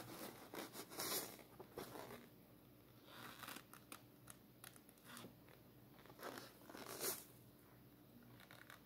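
Faint, sticky crackling of a small rubber balloon pressed into wet pour paint on a canvas and peeled off again, in a few short separate bursts, the clearest about a second in and again near the end.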